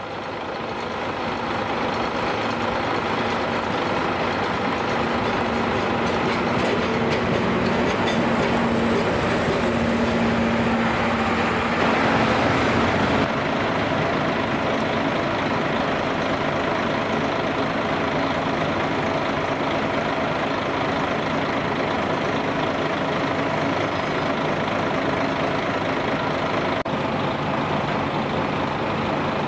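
JNR Class DE10 diesel-hydraulic locomotive's V12 diesel engine running steadily while the locomotive is uncoupled and run around its coach, with a slight change in tone about 13 seconds in.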